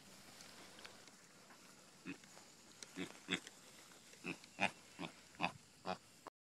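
Piglet grunting: about eight short, separate grunts beginning a couple of seconds in, with the sound cutting off abruptly near the end.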